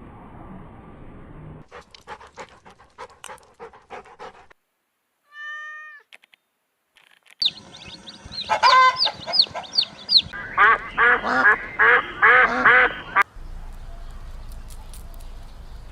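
A sequence of short clips of domestic animal calls: a single call, then a rapid run of high falling calls, then a loud, dense stretch of many overlapping calls, between stretches of clicks and background noise.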